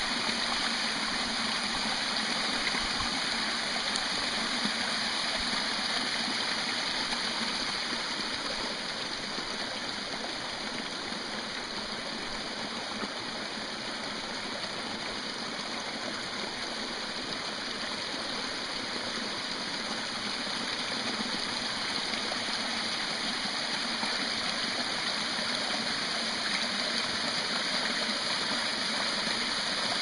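Steady rush of a small creek waterfall pouring over rock, easing slightly in the middle.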